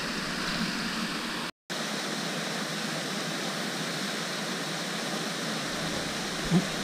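Steady rushing of pond fountains spraying water, with a light splash at the very start as a released bass drops back into the water. The sound cuts out for an instant about a second and a half in.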